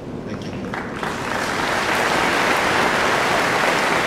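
A large audience applauding; the clapping builds up about a second in and then holds steady.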